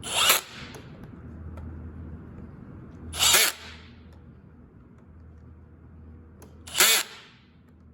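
Power drill/driver run in three short bursts a few seconds apart, tightening screws on a fertilizer pump head assembly.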